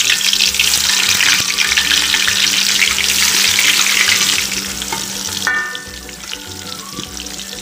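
Tempe slices deep-frying in hot oil in a wok: loud, dense sizzling and crackling that eases to a quieter, steady sizzle about five seconds in.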